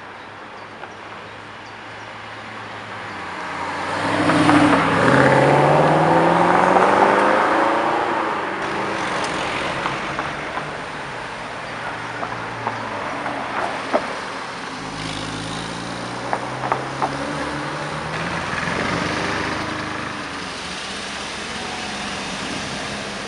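Sports cars accelerating away one after another, their engines revving up through the gears as they pass close by; the loudest pass comes about four to eight seconds in. A few short sharp pops are heard in the middle.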